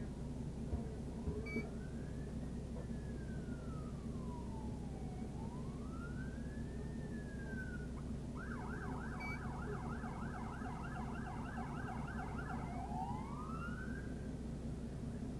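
Police car siren in a slow wail, rising and falling, switching about eight seconds in to a fast yelp of about four sweeps a second, then back to a rising wail near the end. A steady low hum runs beneath it.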